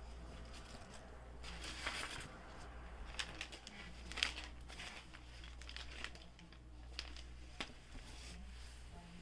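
Tissue paper rustling and crinkling as it is handled and folded, in uneven bursts, with a few sharp clicks in between.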